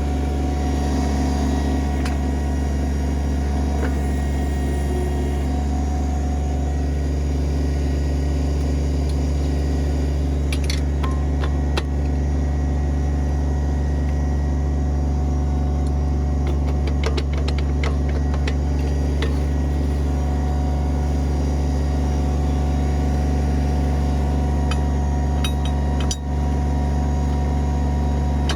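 Kubota BX23S compact tractor's three-cylinder diesel engine running at a steady speed, with scattered light clicks and rattles now and then.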